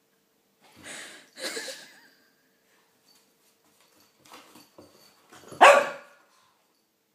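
Shih Tzu puppy barking in play: two short barks close together about a second in, a few small yips, then one loud bark near the end.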